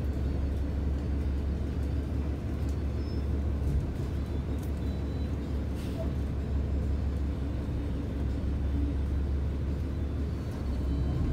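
Steady low rumble of a city bus's engine and road noise, heard from inside the passenger cabin, with a few faint clicks.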